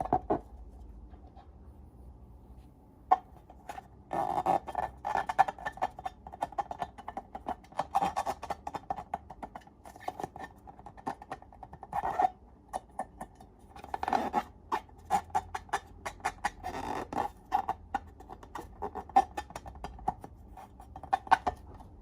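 Slime being squeezed and pulled by hand, giving dense runs of small sticky clicks and crackling pops that come in clusters, with a short quieter gap about two seconds in.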